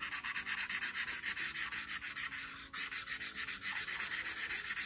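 Felt-tip marker scribbling rapidly back and forth on paper to colour in an area: a quick, even run of scratchy strokes with a brief break about halfway through.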